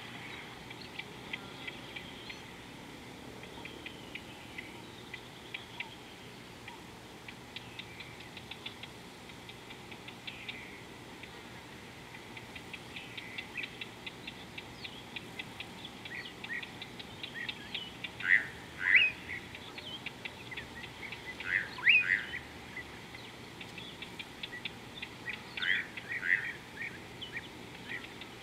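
Wild birds calling: a busy run of short, quick, high chirps, with three louder bursts of calls in the second half.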